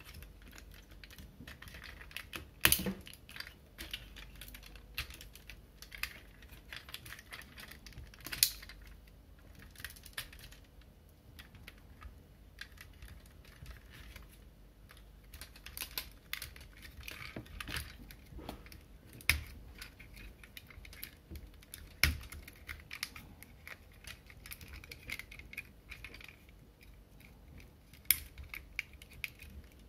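Irregular plastic clicks, taps and light rattles of a Hasbro Night Ops Ratchet Voyager-class Transformers figure being transformed by hand into robot mode, with a handful of louder snaps as parts lock into place.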